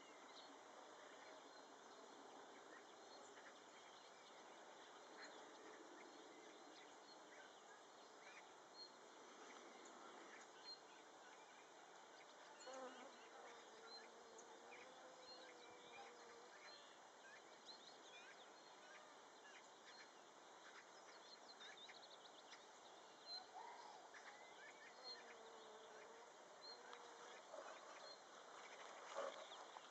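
Faint outdoor quiet with scattered short chirps of distant small birds and a flying insect buzzing past twice, about halfway through and again near the end.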